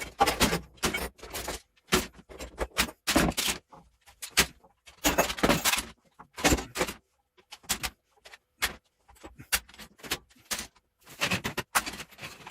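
Clamps clattering and clicking as they are handled, in irregular bursts with short silent gaps between them.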